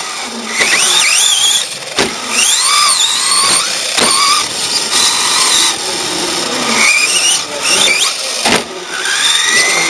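Radio-controlled truck's motor and drivetrain whining, the pitch rising and falling again and again as the throttle is opened and let off around the track, with a few sharp knocks.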